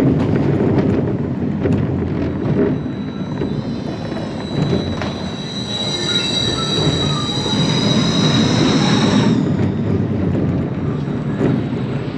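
Family roller coaster train rumbling along its steel track. From about three seconds in, a high whine rises in pitch as the train runs through the station over the drive tires, then cuts off suddenly at about nine and a half seconds.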